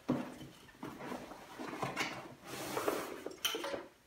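Fabric dry bag rustling and crinkling as it is opened and clothing is pulled out of it by hand, in a string of irregular scrapes that stop near the end.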